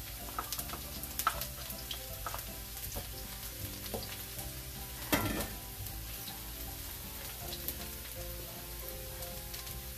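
Minced garlic sizzling and crackling in hot oil in a nonstick wok, stirred with a wooden spatula, with one louder stir about five seconds in.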